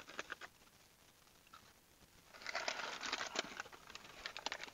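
Paper takeaway food bag rustling and crinkling as it is handled: a few light ticks near the start, then about two seconds of dense crinkling in the second half.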